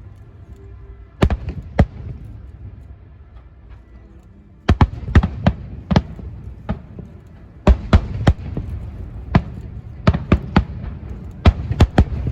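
Fireworks going off: a string of sharp bangs in irregular clusters, two about a second in, then groups from about the middle on, over a steady low rumble.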